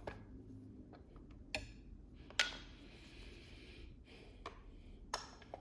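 Sharp metallic clicks and clinks from the lock's metal parts being handled and worked during disassembly, about five in all; the loudest, about halfway through, rings on briefly.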